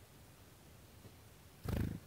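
A brief low whirring flutter near the end, from a small black-capped tit's wings as it flies off the tube feeder close to the microphone.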